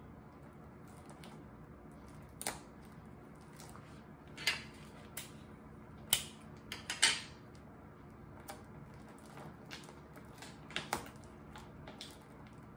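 Sticky tape and gift packaging being handled: a scattering of short crinkles and rasps, loudest around the middle.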